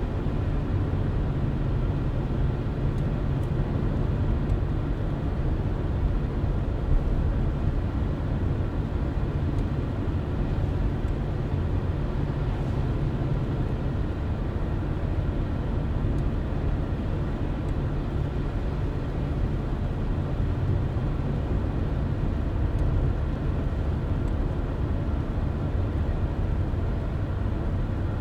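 A car driving at a steady speed: a steady low rumble of road and engine noise that does not change.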